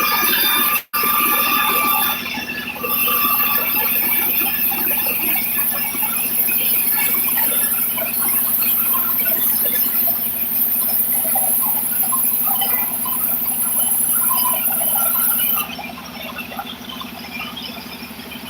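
Sawmill saw and machinery running, a steady hum under a high-pitched squeal. There is a brief cut-out about a second in, and the level drops for a moment about two seconds in and again near the end, when the high squeal stops.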